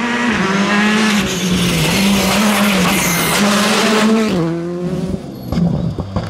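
Rally car passing close at speed, its engine note rising and falling several times over a hiss of tyre noise. The engine drops away after about four and a half seconds, followed by a few sharp cracks near the end.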